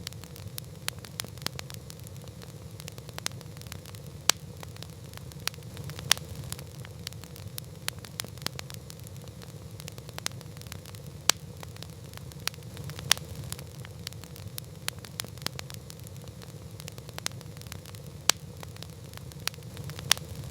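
Campfire burning with a steady low rumble of flame, dotted with irregular crackles and sharp pops of burning wood, a few much louder than the rest.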